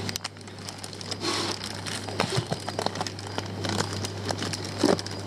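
Plastic fish-shipping bags crinkling and rustling as they are handled and pulled out of a box, in many irregular little crackles over a steady low hum.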